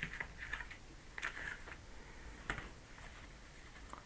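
Faint ticks and brief soft rustles, a few short handling noises: a cluster at the start, another a little after a second in, and a sharper tick about halfway through.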